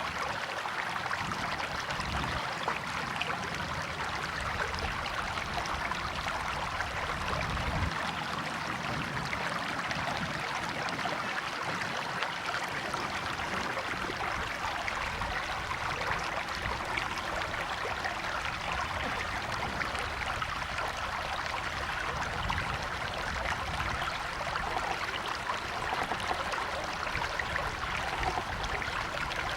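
River or stream water flowing and babbling steadily, an even rushing with a constant level.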